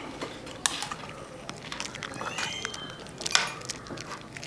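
Scattered light clicks and taps of a plastic bed switch and its wires being handled, with the loudest click a little after three seconds in. A brief faint high-pitched tone sounds a little past halfway.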